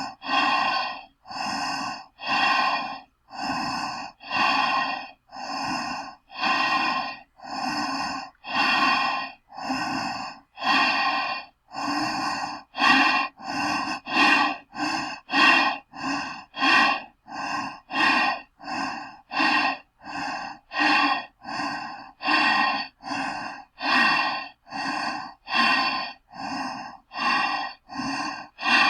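Breathing through a gas mask: steady, rasping in-and-out breaths through the mask's filter, one after another with short gaps, quickening a little after about twelve seconds.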